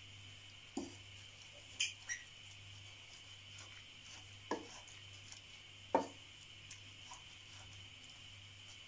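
Wooden spoon stirring grated carrots through milk in a kadhai, with a handful of soft, scattered knocks and scrapes of the spoon against the pan, the loudest about six seconds in, over a faint steady hum.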